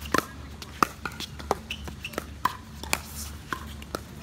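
Pickleball paddles striking a plastic pickleball in a fast rally: a quick run of sharp, irregularly spaced pocks, some with a brief ring after the hit.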